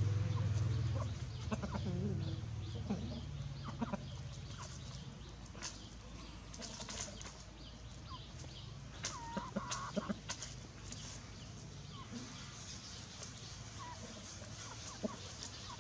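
Cockerel and chicks clucking, with short sharp ticks scattered through. A low rumble fades out over the first few seconds.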